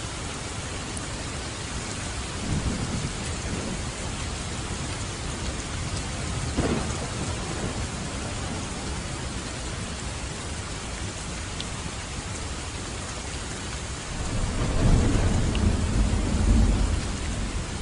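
Steady heavy rain with rolling thunder: low rumbles swell briefly about two and a half and six seconds in, then a louder, longer rumble from about fourteen seconds.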